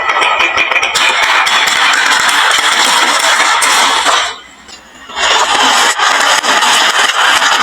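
Many marbles rolling and clattering down a wooden marble-run slope, a dense run of fine clicks and rattles. It breaks off for about a second midway, then starts again.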